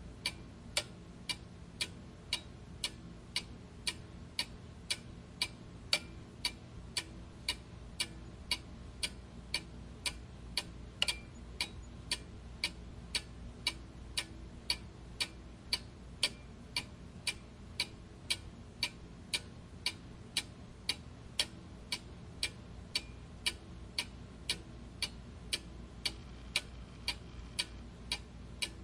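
Clock ticking steadily and evenly, about two ticks a second, over a faint low hum.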